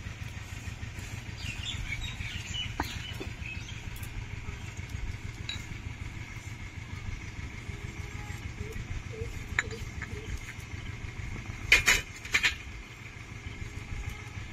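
Roasted spices (radhuni and cumin) being ground to a paste, a steady low rumbling grind, with two sharp knocks near the end.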